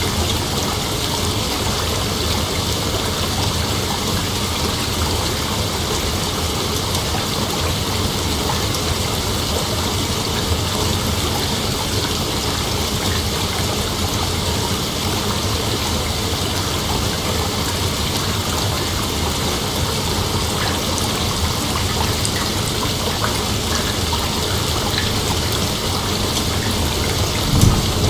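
A steady, even hiss of falling water. A low rumble of thunder begins near the end.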